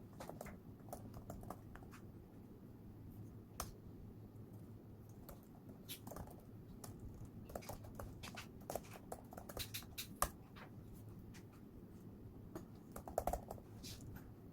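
Irregular light clicks and taps, a few at a time, over a faint steady hum; the sharpest click comes about two-thirds of the way in.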